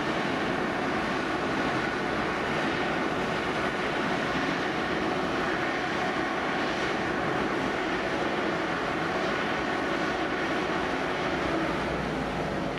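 Fire engines at a blaze running steadily, an even mechanical drone with a constant hiss over it.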